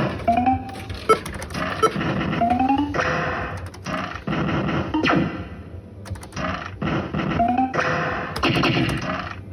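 BWB Volcano fruit machine playing its electronic game music and sound effects, with short rising synth tones repeated several times amid clicks and clunks from the machine.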